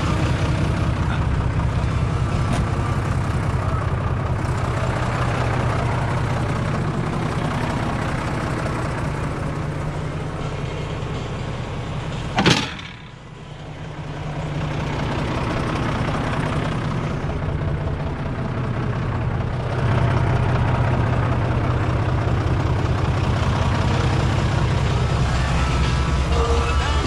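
Fendt Favorit 611 LSA tractor's diesel engine running steadily with a low pulsing beat. About halfway through there is a single sharp bang, after which the engine sound dips briefly and then builds back up, growing louder again a little later.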